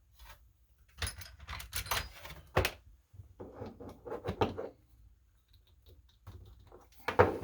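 Small metal tools and a padlock being handled: several short bursts of clicks, clinks and rattles with quiet gaps between.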